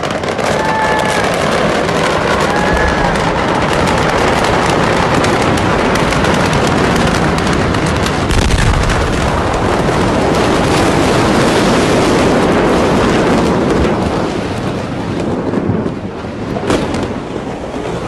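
Loud, dense crackling and popping from a large explosion-related fire, over a steady rushing noise, with a deeper low thud about eight and a half seconds in.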